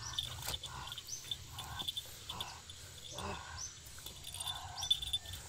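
Repeated animal calls: a short mid-pitched call recurring about once or twice a second, with short high chirps over it.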